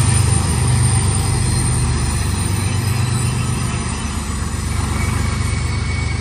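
Mid-train BNSF diesel locomotives rumbling past at close range, then double-stack container cars rolling by on the rails. The deep engine rumble eases after about four seconds, and a faint wheel squeal comes in near the end.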